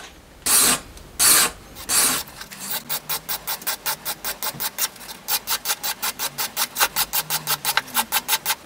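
Hand polishing of a cam lobe on a homemade DOHC camshaft with a flat abrasive bar, abrasive rubbing on metal to smooth the lobe. Three slower strokes come first, then about two seconds in it changes to quick short strokes at about five a second.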